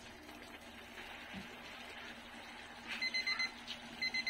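Electronic alarm beeping: quick groups of short, high beeps at one pitch, starting about three seconds in, over the steady hiss of a pan simmering on the gas burner.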